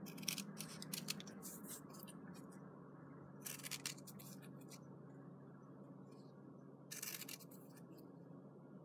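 Small scissors snipping through fabric backed with fusible web, in short clusters of snips: near the start, about three and a half seconds in, and again about seven seconds in.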